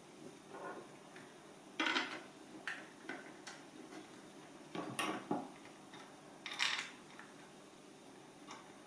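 Irregular small metallic clinks, taps and rattles of screws and a hand tool being worked on a Mazzer Mini-e grinder's metal housing during reassembly, a handful of separate knocks with the loudest about two and five seconds in.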